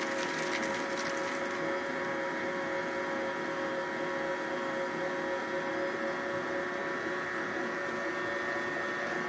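Electric stand mixer running at a steady speed, beating sugar and eggs together for cake batter; an even motor hum.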